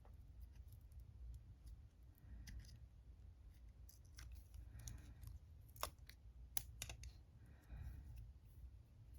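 Faint scattered clicks and light handling noise from working with a watercolour paint set and its pan wrappers, with two sharper clicks about six seconds in.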